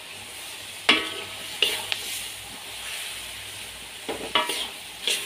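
Pork intestine and pineapple sizzling in a wok over high heat while cornstarch slurry is stirred in, with a metal spatula striking and scraping the wok in several sharp, ringing clanks.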